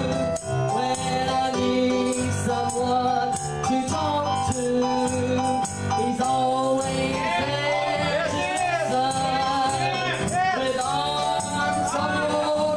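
A woman singing a gospel song into a handheld microphone over instrumental accompaniment with a bass line and a steady percussion beat.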